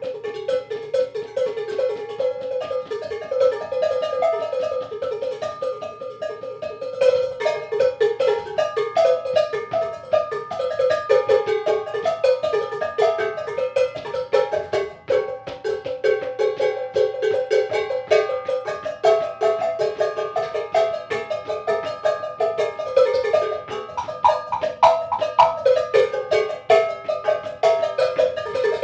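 A rack of tuned cowbells struck rapidly in a fast, continuous run of notes at several different pitches.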